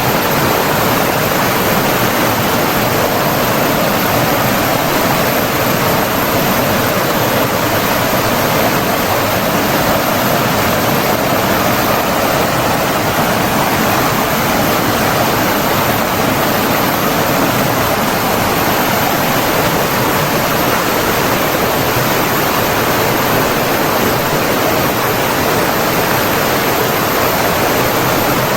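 Flowing water rushing steadily, an even hiss with no breaks or changes in level.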